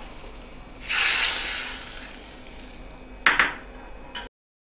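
Hot tempering of oil, mustard seeds, cumin and onion vadagam poured from a tadka ladle onto spinach dal, sizzling loudly about a second in and fading over the next two seconds. A sharp metal clink follows near the end, then the sound cuts off.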